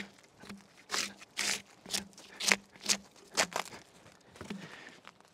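Drawknife stripping bark off a log in quick pulling strokes, about two a second, each a short scraping tear.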